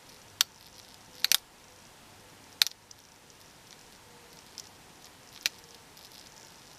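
Small mains-powered synchronous clock motor with a jammed gearbox, giving a few sharp, irregular clicks, one of them a quick double click about a second in, as the gears catch and skip instead of turning: the sign of a stuck gear train.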